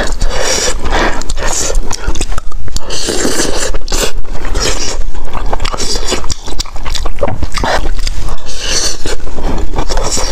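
Close-miked eating: chewing and mouth smacking on rice, with a metal spoon scraping and scooping through the rice in a plastic tray, a dense run of small clicks and crackles.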